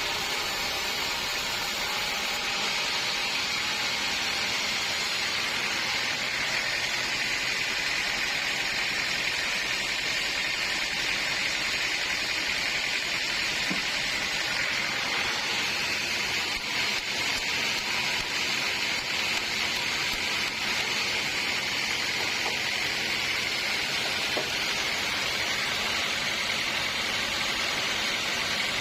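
Sawmill saw running through a log, a steady hissing cutting noise.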